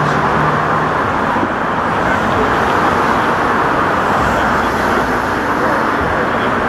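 Steady street traffic and idling-vehicle noise, an even rumble with a faint low hum in the first second.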